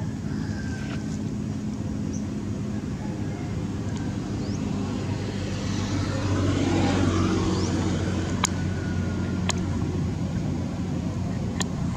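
A motor vehicle engine running steadily, with a swell as a vehicle passes about halfway through. A few sharp clicks sound near the end.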